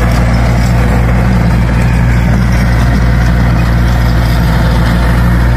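Tractor engine running at a steady speed with a deep, even hum, driving a rear-mounted rotary tiller through the soil.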